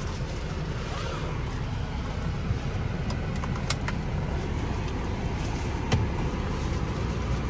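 Mercedes-Benz R350 4Matic heard from inside the cabin: a steady low rumble from the running car, with a few light clicks around the middle.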